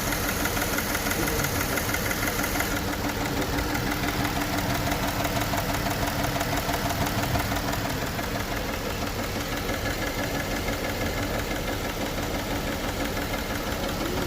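Engine idling steadily with a misfire and a rattle coming from the cylinder head.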